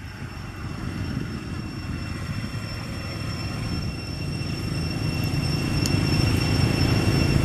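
Road traffic of motorbikes, a tuk-tuk and a bus: a steady low rumble that grows louder toward the end, with a steady high-pitched tone over it.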